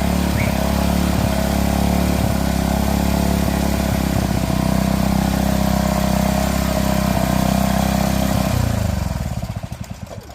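Gas engine of a Craftsman pressure washer running steadily, then shut off about nine seconds in and sputtering down to a stop.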